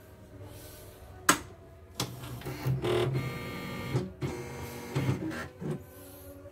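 CNY computerized embroidery machine powering up: a sharp click about a second in, then its motors whir in several short runs for about four seconds as the machine goes through its start-up test.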